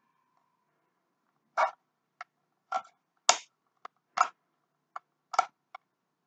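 Hard plastic pieces of a unicorn taco holder clicking and knocking together as they are handled and pushed into place: about nine short, sharp clicks at uneven intervals, starting about a second and a half in.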